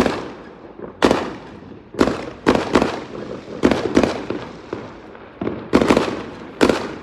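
Fireworks exploding: a string of about a dozen sharp bangs at irregular intervals, sometimes two close together, each trailing off in an echoing tail.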